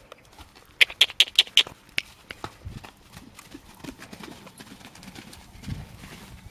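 Connemara gelding's hooves thudding on a sand arena as it trots loose, with a quick run of sharp clicks about a second in.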